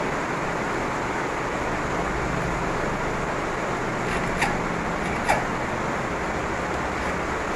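Steady background noise with two light metallic clicks about a second apart near the middle, as a small hand file works a DA34 key blank in its lock rotor.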